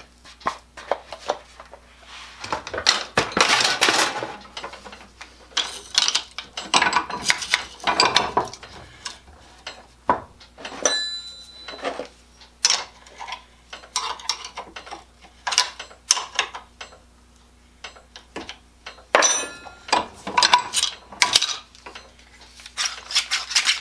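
Irregular metal clinks and scrapes as a wrench tightens the self-locking pivot nut of a pair of steel hand hedge shears held in a vise, and the blades are worked open and shut. A couple of brief metallic rings come through.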